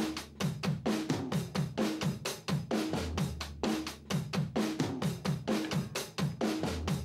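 Backing music: a fast, steady drum-kit beat with bass drum, snare and hi-hat, and short falling low notes under the strikes.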